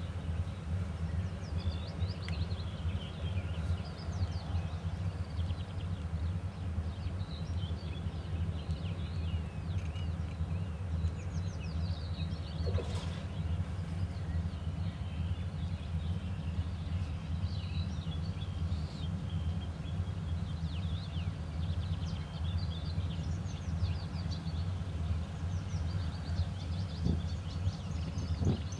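Steady low rumble of a distant 2TE10U diesel locomotive's 10D100 two-stroke opposed-piston engine idling, with songbirds chirping throughout.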